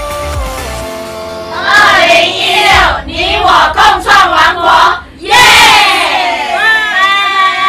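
Electronic dance music with a heavy beat cuts off about a second in. A group of women then shout together in unison, break into a loud cheer about five seconds in, and finish with a long held group shout.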